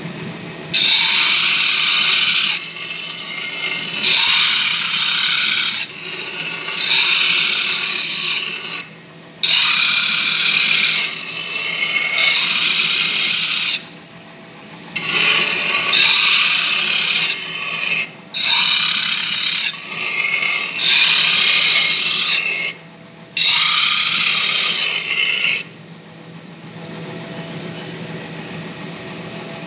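Glass pieces being ground on a spinning electroplated diamond plate: harsh, high-pitched grinding in repeated passes, each a second or two long with short breaks between. Underneath is the steady hum of the grinder's motor, which runs on alone near the end.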